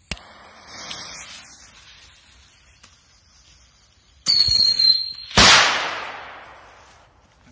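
A ground-jumping firecracker: a sharp pop, then a fizzing hiss that fades. About four seconds in it gives a short high-pitched squeal. A second later comes a loud bang that echoes away.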